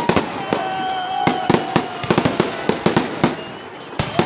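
Fireworks salute: many sharp bangs going off in quick, uneven succession, with a steady whistle-like tone sounding under them for seconds at a time.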